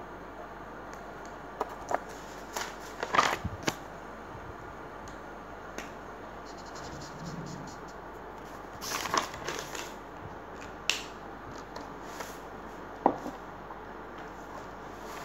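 Paper rustling as the pages of a spiral-bound notebook are handled and turned, with scattered light knocks on the desk, over a steady hiss. The rustles come in two clusters, about three and nine seconds in, with a sharp knock near the end.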